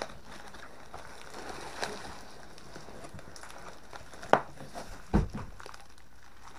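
Cardboard shipping box being torn open and bubble wrap crinkling, with a sharp knock about four seconds in and a heavier, deeper thud a second later as a bubble-wrapped rifle is pulled out of the box.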